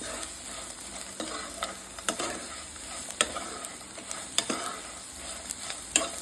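Fried corn kernels with garlic, onion and spices being stirred in a hot oiled pan, sizzling with a steady hiss. The spoon knocks and scrapes against the pan at irregular intervals, about once a second.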